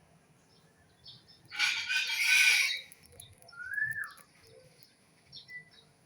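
Birds calling: a loud harsh, raspy sound lasting about a second starts about one and a half seconds in, followed by a short whistled note that rises then falls, and faint short chirps near the end.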